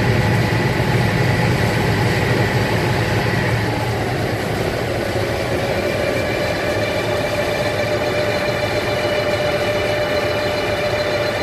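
Pilot boat's diesel engines running steadily underway. A low rumble eases after about four seconds while a steady whine holds.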